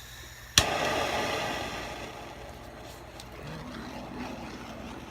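A handheld torch clicking alight about half a second in, then its flame hissing steadily as it is played over wet acrylic paint to pop bubbles. The hiss is loudest just after lighting and eases to a steadier, quieter level.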